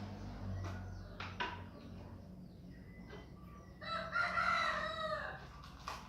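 A rooster crows once, one long call about four seconds in, over a low steady hum, with a few light knocks in the first second and a half.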